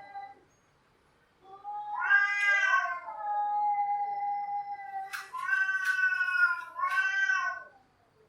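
Cats yowling (caterwauling). A long drawn-out yowl rises, falls and then holds a steady pitch, followed by two shorter wavering yowls that fall away near the end.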